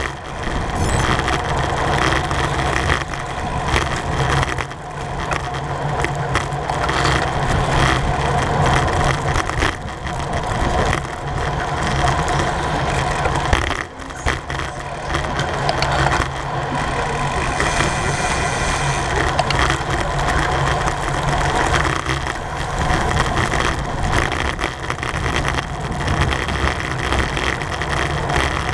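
Steady rush of wind and road noise on a bicycle-mounted camera moving at racing speed in a criterium pack, buffeting and rumbling unevenly, with a brief lull about fourteen seconds in.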